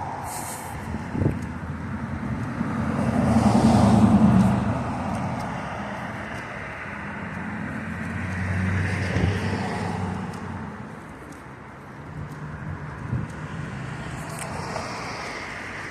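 Road traffic: cars passing one after another, the loudest swelling up and fading away about four seconds in, another around nine seconds.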